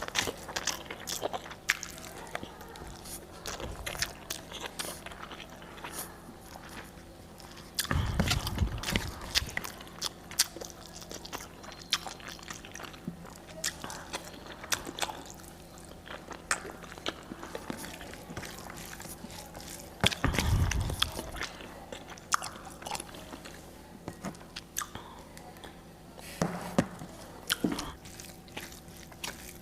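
A person eating close to the microphone: steady chewing with many small wet mouth clicks and crunchy bites, and a few heavier low bursts about eight, twenty and twenty-six seconds in.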